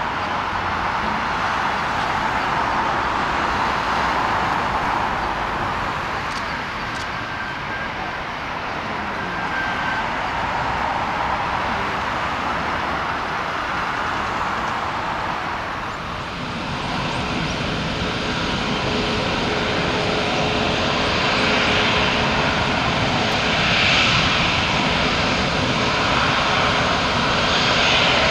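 Jet airliner engines at taxi power, a steady rushing whoosh from a taxiing Boeing 737. About 16 seconds in the sound changes to a brighter hiss with a steady hum underneath, from the four engines of a taxiing Airbus A380, growing a little louder near the end.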